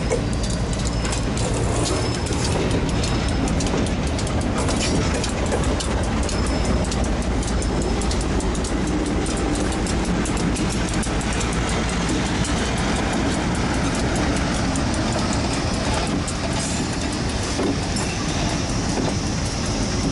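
Diesel-hauled freight train rolling slowly over the rails during switching, with a steady low rumble and wheels clicking over rail joints. Short high wheel squeals come in the first few seconds, and a longer squeal starts near the end.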